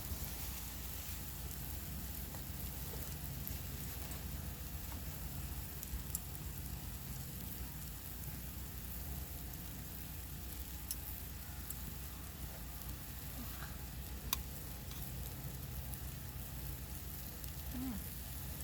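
Seasoned diced beef steak sizzling steadily on a small Ogawa mini iron griddle over a wood fire, with a few sharp ticks and pops.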